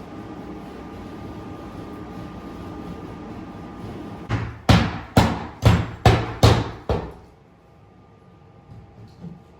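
Steady mechanical hum with a faint whine, then about four seconds in a run of about six loud knocking blows, roughly two a second, from demolition work; the hum stops as the blows end.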